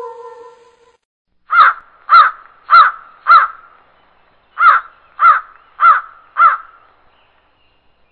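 Crow cawing: two runs of four short caws, evenly spaced a little over half a second apart, with a pause of about a second between the runs.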